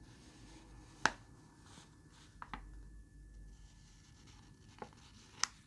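Ballpoint pen drawing lines on a sheet of paper: a faint scratching, with a few light clicks.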